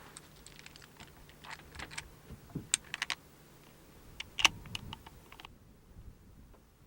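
Irregular light clicks and taps, the sharpest about four and a half seconds in, over a faint steady hum in the first couple of seconds.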